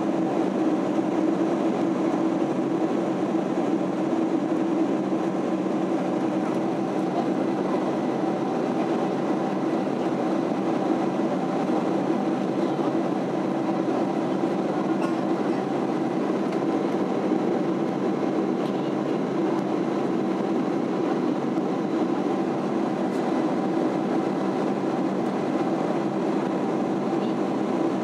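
Steady cabin noise inside a Boeing 767-300 airliner in flight: an even drone of engines and airflow with a low hum, holding level without change.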